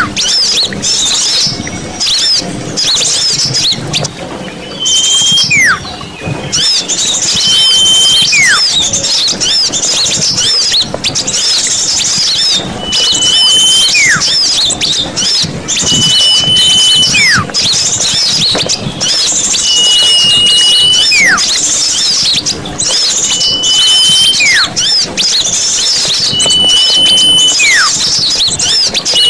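Many small birds chattering and twittering together in a busy chorus, a bird-luring recording. Over it, one call repeats about every three seconds: a short held whistle followed by a whistle sliding steeply downward.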